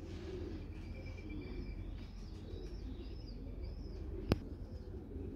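Small birds chirping with short, repeated high calls, over low pigeon cooing from the loft. A single sharp click about four seconds in.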